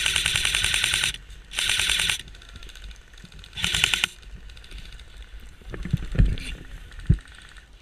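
Airsoft electric rifle firing three full-auto bursts in quick succession, a rapid mechanical rattle of shots, the third burst the shortest. A few dull thumps follow near the end.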